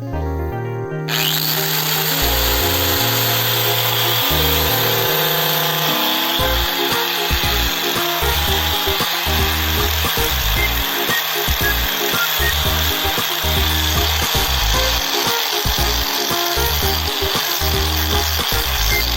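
Disc grinder with a woodworking disc grinding into wood, a steady grinding noise that starts about a second in, over background music.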